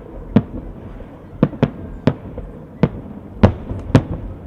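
Festive fireworks salute: aerial shells bursting in about seven sharp bangs at irregular intervals, the two loudest coming close together near the end.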